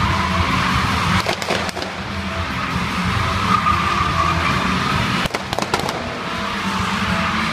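Stunt cars drifting: engines revving under a steady, high tyre squeal. Sharp cracks come about a second in and again at about five seconds.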